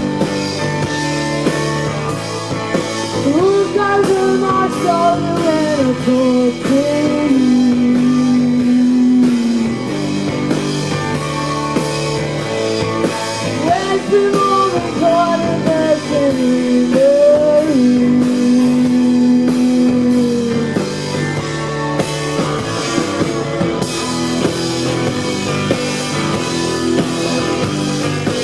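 Live rock band playing: a steady drum beat with bass and electric guitars, and a sliding melody line over them twice.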